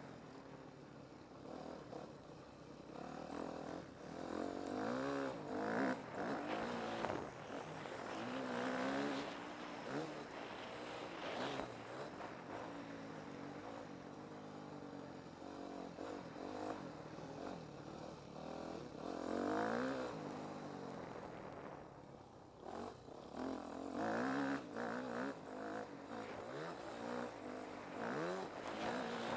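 Yamaha motocross bike's engine heard from on board, revving up and easing off again and again as the rider works the throttle around the dirt track.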